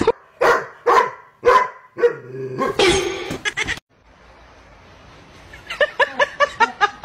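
A dog barking in a rapid run of short barks near the end, after a few separate short, sharp sounds in the first few seconds.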